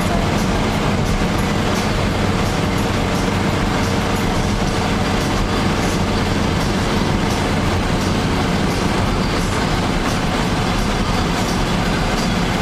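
Steady engine drone and tyre and road rumble heard inside the cabin of a moving road vehicle, with a constant low hum.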